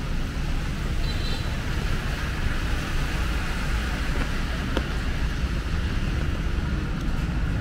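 Steady city traffic on a rain-wet road: tyres hissing on the wet asphalt over a low, even rumble.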